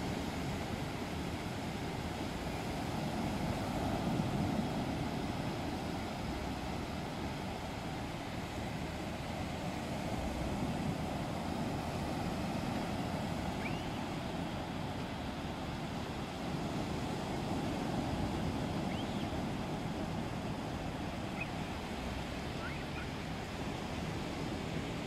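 Surf breaking on a sandy beach: a steady wash of waves that swells and eases every few seconds. A few faint, short high chirps come through in the second half.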